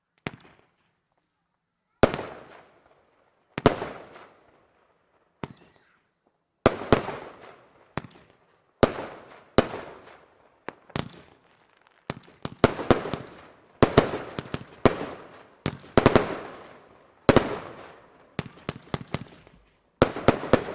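Blackboxx 'Lady Killer' consumer firework battery firing: sharp single shots about one and a half to two seconds apart at first, each trailing off, then coming faster and in clusters from about halfway on as the battery builds up.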